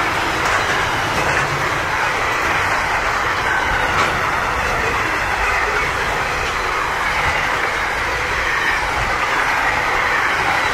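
Box and refrigerated wagons of a long freight train rolling past: the steady rumble and rattle of steel wheels on the rails, with clicks over the rail joints.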